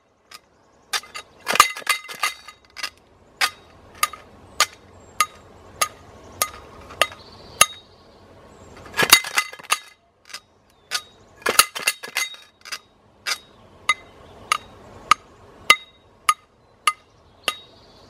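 A stick tapping the side of a homemade tin-can shaker in a steady beat of nearly two strikes a second, with a few louder flurries of quick clattering strikes, the biggest about nine and twelve seconds in.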